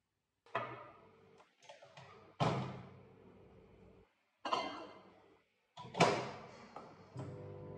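A series of sharp knocks and clatters, each dying away briefly before cutting off abruptly into silence; the loudest comes about six seconds in.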